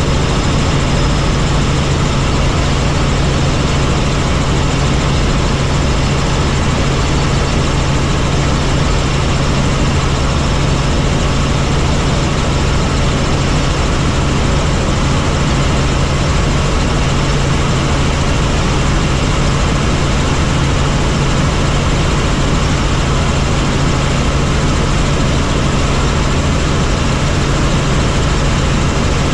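Helicopter in flight: the steady, loud drone of the rotor and engine, with a constant low hum and no change in pitch or level.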